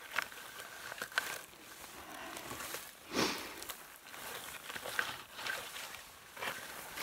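Skis and boots brushing and scraping through heather: an uneven rustling with a few sharp clicks and one louder swish about three seconds in.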